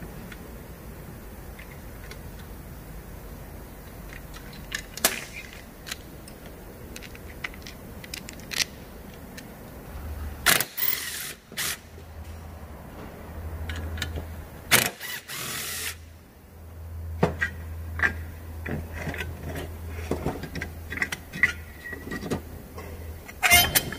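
Hand tools and small metal parts of a Honda GX35 brush-cutter engine clicking and clinking during disassembly. Two hissing blasts of about a second each come near the middle, and a low hum runs from about halfway on.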